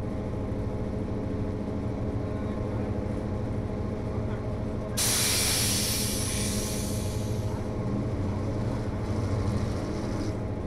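HO scale model locomotive running with a steady hum made of many even tones. About five seconds in, a sudden loud hiss starts and fades away over the next two to three seconds.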